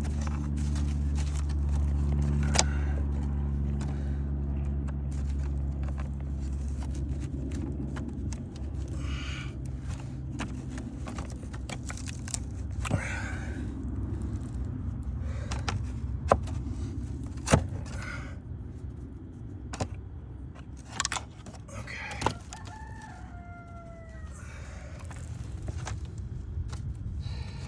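Sharp clicks and taps of hand tools working shake siding fasteners loose, over a low steady motor hum that fades out during the first several seconds. Near the end comes a short falling call, a bird's.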